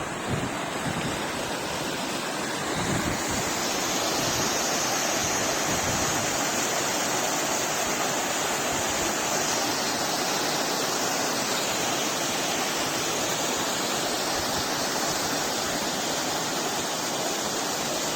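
Water pouring over Butcher Falls, a small creek waterfall: a steady, even rush that grows louder about three seconds in.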